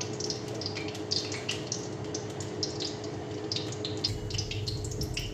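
Hot ghee sizzling in an iron kadhai, with irregular small crackles and pops all through, over a steady low hum.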